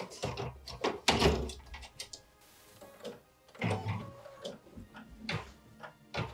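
Plastic embroidery hoop being handled and clicked onto the carriage of a Baby Lock embroidery machine: a series of separate clicks and knocks, the loudest in the first second or so.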